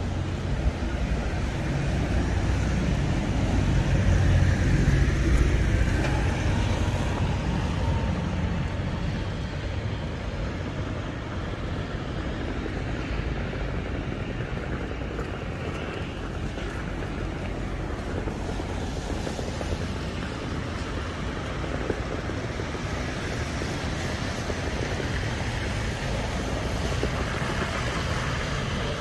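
City street traffic: a steady hum of passing vehicles, with one vehicle passing closest and loudest about four to six seconds in.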